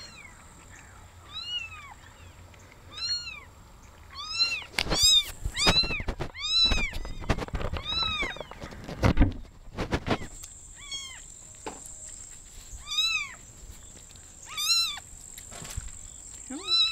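Very young kitten mewing: a string of short, high, thin cries every second or two, coming fastest and loudest in the middle. Bumps and rubbing of handling on the microphone sit under the busiest cries.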